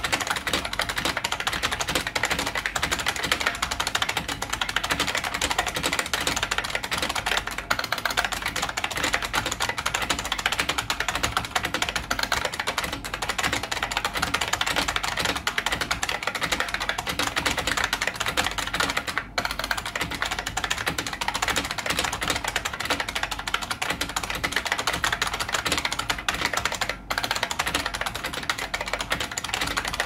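Fast, continuous typing on a 1994 IBM Model M keyboard, its buckling-spring switches clacking under PBT keycaps, broken by two brief pauses in the second half.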